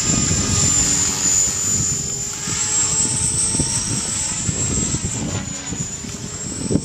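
EXI 450 electric RC helicopter (a Trex 450 clone) in flight, its motor and rotor gearing giving a steady high whine over the rotor noise. The pitch rises a little about three seconds in and again near the end.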